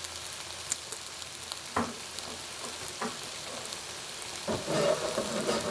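Cooking wine sizzling as it reduces in a hot pan of chicken, with a few sharp knocks of a utensil stirring against the pan.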